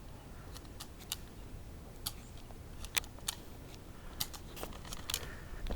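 About fifteen sharp, irregular clicks and snaps, some faint and some louder, typical of toy blasters firing.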